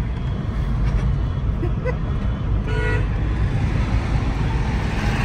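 Steady engine and road rumble from a moving vehicle, with one short horn toot about three seconds in.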